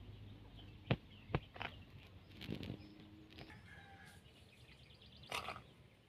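Faint bird chirps outdoors, with two sharp clicks about a second in and a brief soft rustle near the end as a metal spoon scoops flour from one clay bowl into another.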